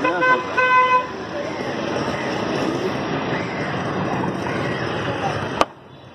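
A vehicle horn honks twice in quick succession at the start, followed by street traffic noise and background chatter. A single sharp knock comes near the end.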